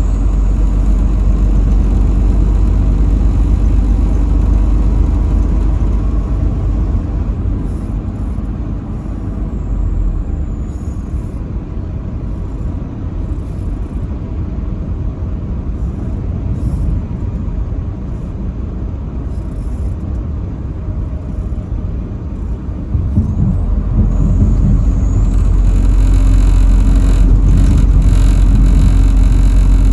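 Semi truck's engine and road noise while driving: a steady low rumble that grows louder about 23 seconds in.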